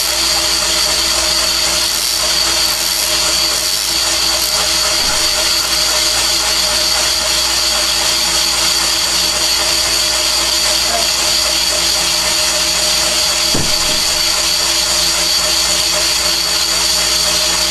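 Van Norman 777 boring bar running steadily, a machine whir with a constant high whine, as its spinning cutter takes a light cut of metal off the inside of an engine cylinder, boring it oversize.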